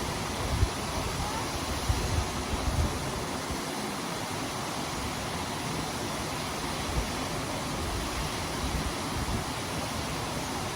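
Waterfall, a steady rushing of falling water, with a few low bumps in the first few seconds.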